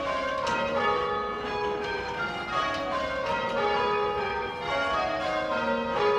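Tower bells rung full circle by rope, ringing rounds: the bells strike one after another, stepping down in pitch from the highest to the lowest, and the sequence repeats with their ringing overlapping.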